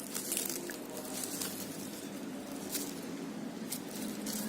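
Faint rustling and a few light clicks of small packaging being handled while an RC transmitter's battery is unpacked.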